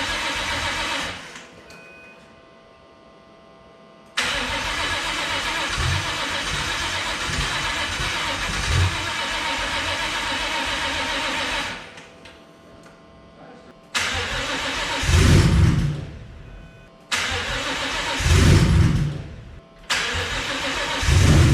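A Ford Mustang V8 is cranked on the starter in repeated attempts, with short pauses between them. Over the last three attempts the engine fires in brief loud surges but does not keep running. It is still hard-starting after being retimed, and the owner suspects the engine tune.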